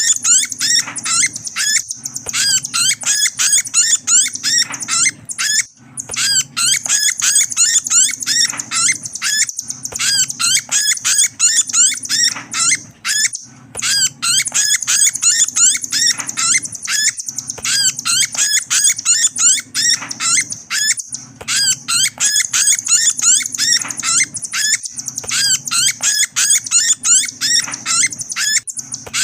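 Nuthatch (rambatan paruh putih) lure call: long runs of rapid, high twittering chirps, broken by short pauses every several seconds, over a steady low hum.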